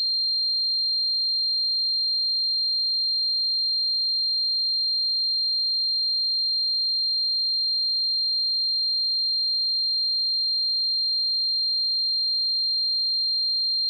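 A single steady, high-pitched electronic tone, unchanging in pitch and loudness: a synthesized tinnitus sound effect imitating ringing in the ears.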